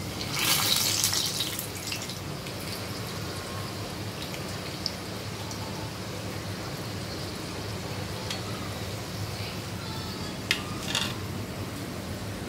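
Spring rolls sizzling in hot oil in a kadai as they are lifted out with a perforated steel skimmer: a loud burst of sizzling about half a second in, then a steady low sizzle over a steady low hum, with a few light clicks near the end.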